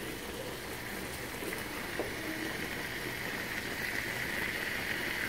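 Bitter-flower and meat stir-fry sizzling and bubbling in a wok, a steady hiss that grows a little louder toward the end.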